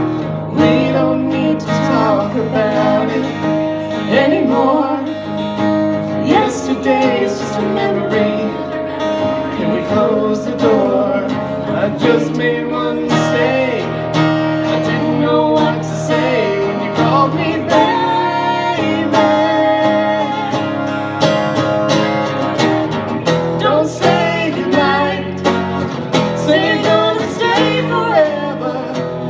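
A live song: an acoustic guitar strummed while a woman and a man sing.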